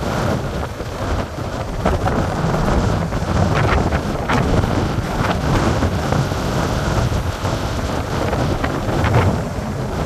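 Heavy storm surf breaking on a beach under gale-force wind, the wind buffeting the microphone into a loud, unbroken rumble with a few sharper gusts.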